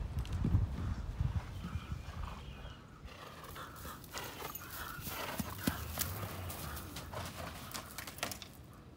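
Quarter horse's hoofbeats on soft, hay-strewn turf as it moves loose around the paddock. There are low thuds in the first few seconds, then lighter, sharper footfalls as it comes close and slows near the gate.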